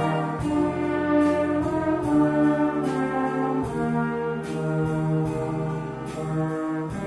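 Brass band playing slow, sustained chords that change about once a second, with trombones and trumpets.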